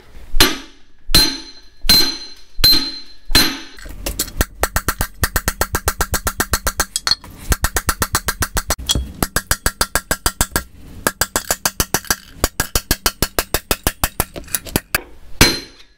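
Steel drift struck with hammer blows, driving a worn dry cylinder sleeve out of a 1942 Farmall M engine block through a homemade puck; each blow rings sharply. About five spaced blows come first, then a fast run of blows, about five a second, with brief pauses, until the sleeve comes free.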